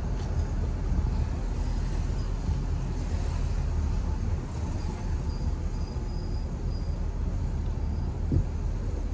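Car driving along a street: a steady low rumble of road and engine noise, with a short thump about eight seconds in. Faint, short high chirps come and go over the rumble near the middle.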